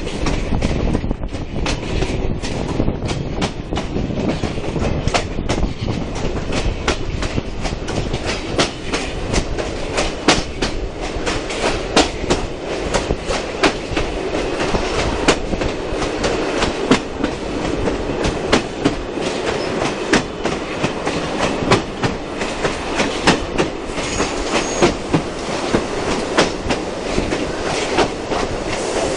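Passenger carriages of a steam heritage train rolling along, their wheels clicking over the rail joints in a recurring rhythm over a steady rumble, heard from an open carriage window.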